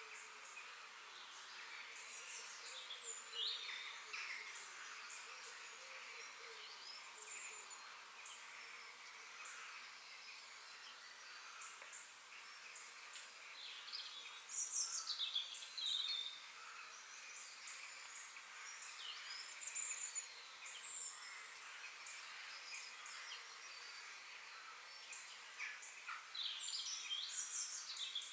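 Outdoor nature ambience: several birds calling and chirping in short sweeping notes, with a steady high hiss of insects beneath. The calls come in clusters, busiest about halfway through and near the end.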